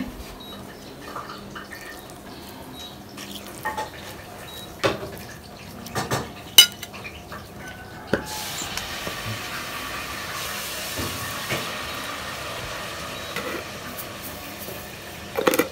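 Kitchen utensils clinking and knocking against dishes while food is prepared, with a few sharp clinks in the first seven seconds. From about eight seconds in, a steady hiss joins them.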